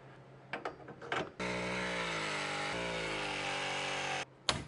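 Vevor SL1930 battery mini press tool running for about three seconds as it presses a copper press fitting, its motor pitch sagging slightly under load, then cutting off abruptly. A sharp click follows just after, with a few small handling clicks before the press.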